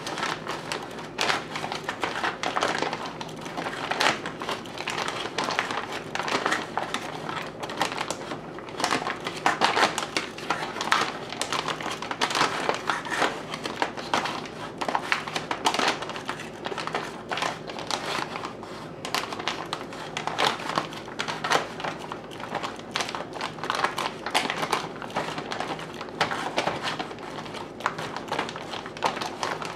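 A Mountain House foil freeze-dried meal pouch crinkling as a long-handled spoon stirs rehydrated chicken fajita filling and seasoning inside it: a continuous, irregular run of crinkles and small clicks.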